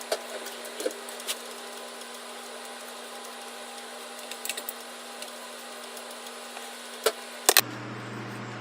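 Scattered light clicks and taps of metal parts being handled, over a steady electrical hum. Two sharper clicks come near the end, then the background hum drops abruptly to a lower pitch.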